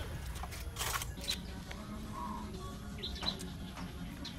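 Faint bird chirps, a few short high calls about a second in and again around three seconds, over low steady background noise.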